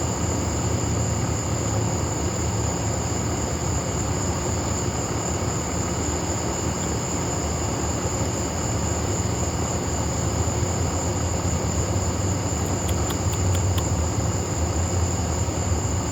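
Night insect chorus: a steady high-pitched drone over a constant low rumble, with a short run of quick clicks about thirteen seconds in.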